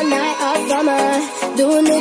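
Background music: an upbeat track with a melodic lead and steady percussion.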